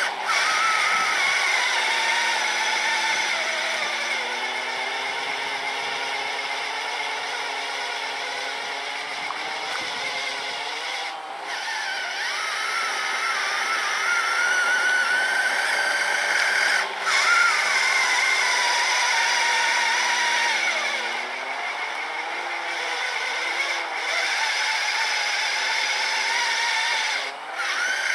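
Electric motor whine from an RC snowblower and its RC truck clearing powder snow. The pitch sags and recovers several times, with three brief drops in the sound.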